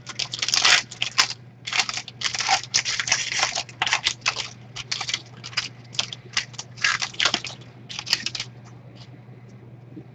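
Card packaging being torn open and handled, an irregular run of crinkling and tearing that stops about eight seconds in.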